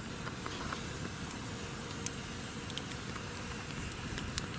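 Wood campfire burning with a steady hiss and a few sharp crackling pops.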